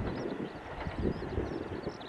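KiHa 189 series diesel railcar train running at a distance, a steady low rumble.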